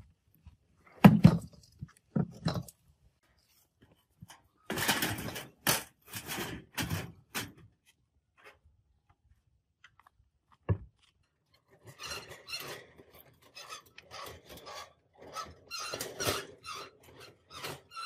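Heavy thumps and scraping of an old steel refrigerator cabinet being tilted and walked across the ground: two hard thumps early, another about two-thirds of the way in, then repeated rattling scrapes as it is moved on a wheeled hand trolley.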